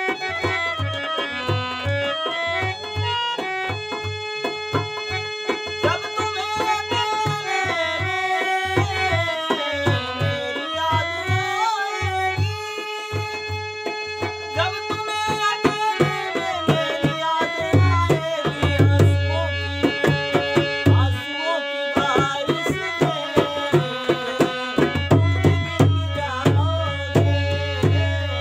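Harmonium playing a melody in held reedy notes over a dholak drum's steady rhythmic beat, with a man's voice singing along in places. The dholak's deep bass strokes come louder in the second half.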